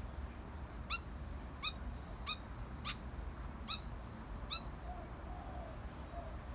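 Young fantail squeaking: six short, high, sharp peeps in an uneven series, a little under a second apart, followed near the end by a few faint, lower wavering notes.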